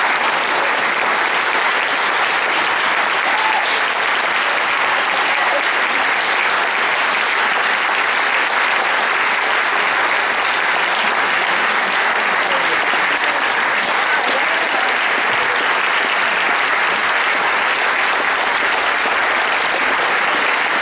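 A hall audience applauding: dense, steady clapping that keeps an even level throughout.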